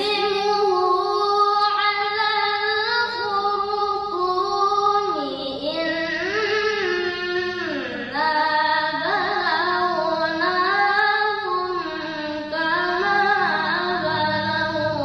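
A boy's voice reciting the Quran in the melodic tilawah style, drawn out in long held notes with ornamented rising and falling pitch glides.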